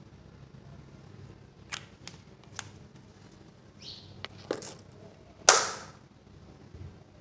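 Small plastic clicks and taps from handling a concealer's case, scattered over a few seconds, with one much louder sharp click about five and a half seconds in.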